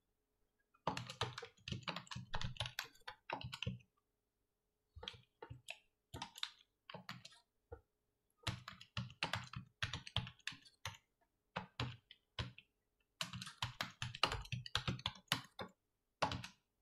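Computer keyboard being typed on: several bursts of quick keystrokes separated by short pauses.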